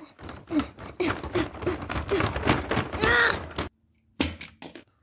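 Green tissue paper rustling and crinkling as a present is unwrapped, with a brief wordless vocal sound near the end. The sound then cuts off abruptly, and a few light knocks follow.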